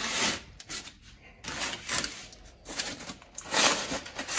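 Aluminium foil crinkling and rustling in several short bursts as it is folded and pressed by hand around a cooked beef roast.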